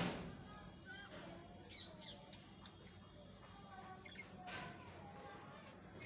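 A flock of budgerigars chattering faintly: many short, scattered chirps and warbles over a steady low hum, with a brief noisy burst at the very start.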